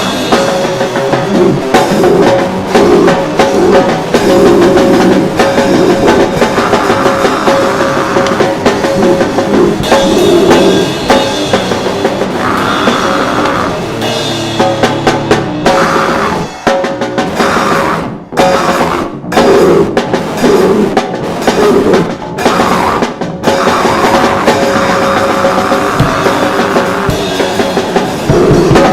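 Rock band playing with a drum kit. Midway the band breaks into a series of short, sharp hits with brief gaps between them, then goes back to full playing.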